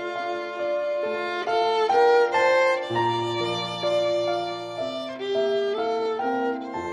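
Instrumental background music: a slow melody of held notes, violin-like, with lower accompanying notes coming in about three seconds in.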